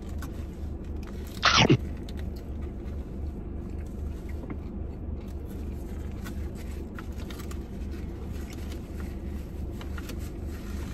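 A person biting into and chewing a hamburger, with faint wet clicks of chewing over a steady low hum. A short, loud sound stands out about a second and a half in.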